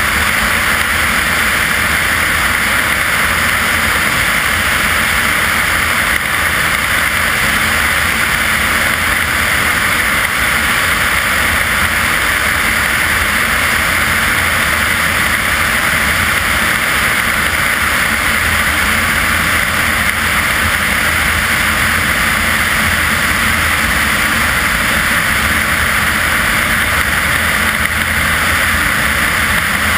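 Steady rush of airflow buffeting an externally mounted camera in flight, over the constant drone of the small plane's engine and propeller at cruise.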